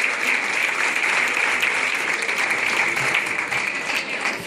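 Audience applauding steadily, a dense spatter of many hands clapping in a large room.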